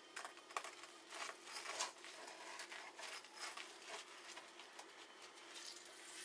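Faint, irregular squishing and pattering as a lemon half is squeezed by hand over a raw turkey and its juice drips onto the bird in a foil roasting pan.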